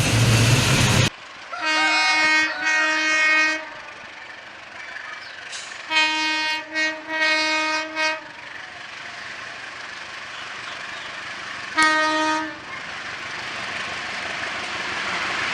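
Indonesian diesel locomotive air horn sounding the Semboyan 35 horn signal: two blasts, a pause, three more (the middle one very short), then one short blast. Loud train running noise cuts off about a second in, and rumbling train noise builds again near the end.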